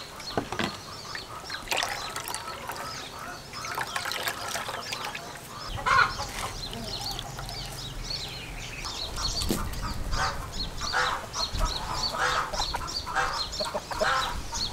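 Domestic poultry calling: many short clucks and honking calls, repeated throughout, with a low steady rumble underneath from about six seconds in.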